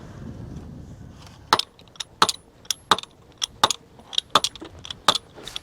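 About ten sharp metallic clinks of metal striking metal during fence-post work. They start about a second and a half in and come at an uneven pace, roughly two a second, and some ring briefly.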